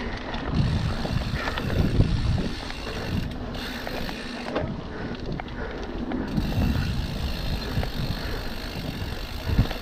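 Mountain bike riding down a dirt trail: tyres rumbling over packed dirt, leaves and stones, with knocks and rattles from the bike over bumps and wind buffeting the microphone.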